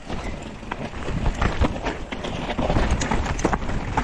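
Mountain bike rattling and knocking over a rough, wet trail, with many irregular sharp clacks over a low rumble of tyres.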